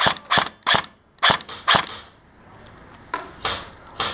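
Airsoft rifle firing single shots in quick succession, five sharp pops about three a second, then a pause and a few fainter shots near the end.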